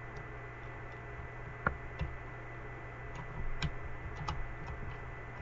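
A few scattered light clicks and taps of small gun parts and motor wires being handled at the AEG's gearbox, the sharpest about a second and a half in, over a faint steady hum.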